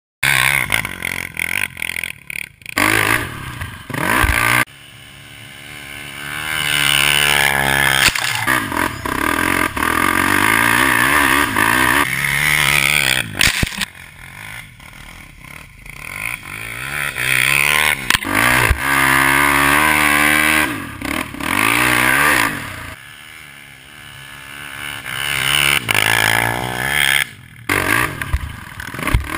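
Polaris Outlaw 450 MXR quad's KTM 450 single-cylinder four-stroke engine, heard through a Motoworks SR4 slip-on exhaust, revving hard and falling off again and again as it is ridden, with several abrupt cuts between takes.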